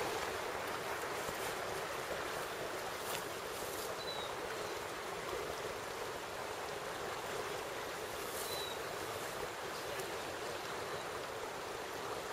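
Steady rushing of river water flowing. Two faint, brief high chirps come about four seconds apart.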